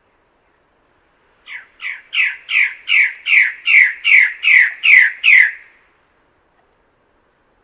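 Bird-of-paradise calling: a series of about eleven loud, harsh notes, each falling in pitch, given at roughly two and a half a second and growing louder before stopping abruptly.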